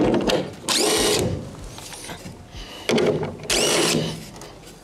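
Cordless drill-driver backing screws out of a wooden transport prop on a pallet, run in several short bursts, each opening with a whine that rises as the motor spins up.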